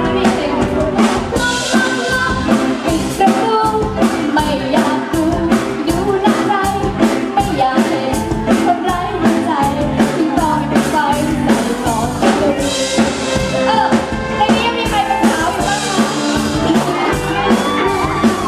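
A woman singing a pop song live into a microphone, backed by a band with electric guitar and a drum kit keeping a steady beat.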